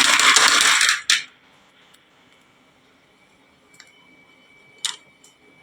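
Many marbles clattering down a wooden marble-run slope for about the first second, then stopping suddenly. A few single marble clicks follow, one louder near the end.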